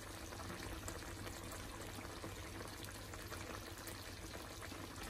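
Cream sauce with fish fillets simmering uncovered in a frying pan: a steady, fine bubbling and popping as the sauce boils.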